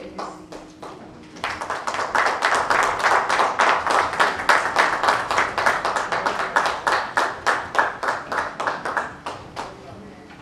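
A congregation clapping in time, about four to five claps a second. The clapping starts about a second and a half in and fades out near the end.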